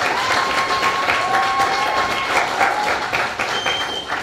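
Audience applauding, with a long whoop from someone in the crowd over it; the applause thins out near the end.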